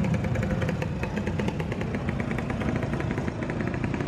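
Small motorcycle engine running at low revs over street traffic noise, with a fast, even ticking.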